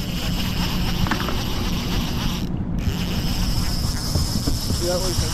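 Fishing reel being cranked steadily as a hooked coho salmon is reeled in.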